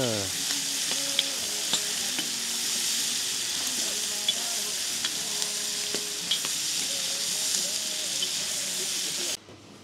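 Food frying in hot oil: a steady sizzle with sharp crackles and pops, which cuts off suddenly near the end.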